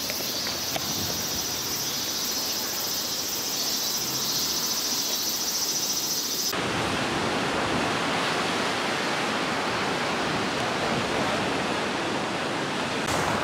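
A steady high-pitched insect drone from the trees for about the first six and a half seconds, then an abrupt cut to the even rush of sea surf breaking on rocks.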